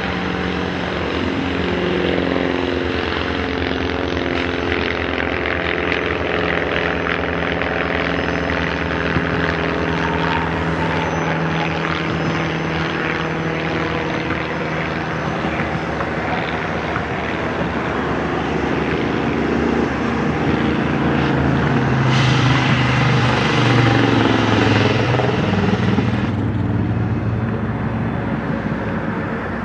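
Two Canadian Pacific EMD diesel locomotives, a rebuilt SD30C-ECO and SD40-3 with two-stroke EMD engines, work past hauling a freight train: a steady diesel drone whose pitch slowly shifts. A hiss joins and the sound grows louder about two-thirds of the way through, then eases.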